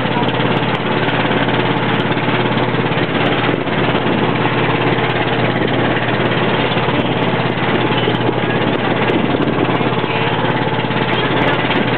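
Boat engine running steadily at an even pitch.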